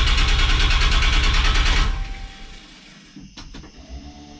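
A 6.7 Cummins inline-six diesel cranking on its starter in rapid, even pulses without catching, then the cranking cuts off about two seconds in. The owner puts the no-start down to the truck being out of fuel. A click and a faint steady tone follow near the end.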